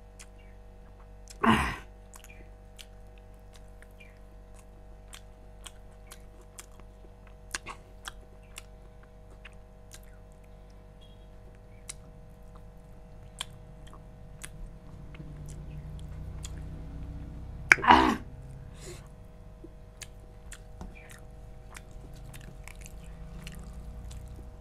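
A person chewing rice and chicken close to a clip-on microphone: soft, scattered mouth clicks and wet chewing. Two brief, louder noises come about a second and a half in and again about eighteen seconds in, over a faint steady hum.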